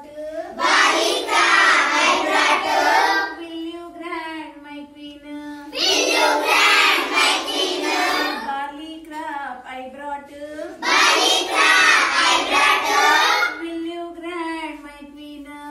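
Children singing a rhyme in call-and-response with a woman: her single voice sings a short line, then the whole group sings back loudly, three times over.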